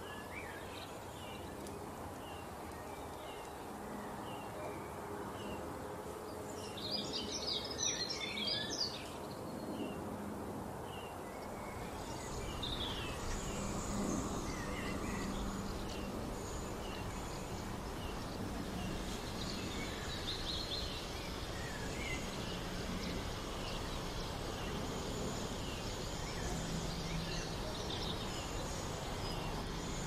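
Outdoor ambience of birds chirping over a steady background hiss. A short high chirp repeats about once a second at first, a quick flurry of bird calls comes about a quarter of the way in, and from about 12 s on the background grows slightly louder with scattered, varied calls.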